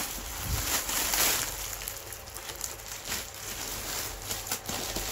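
Packaging being handled and pulled apart as a parcel is unwrapped: rustling and crinkling with many small clicks, loudest about a second in.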